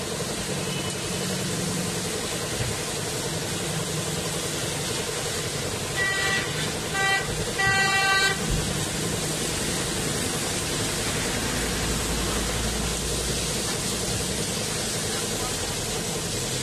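Pressure washer spraying water onto a motorcycle, a steady hiss over a steady pump hum. A vehicle horn on the street honks three times, short, short, then longer, about six to eight seconds in.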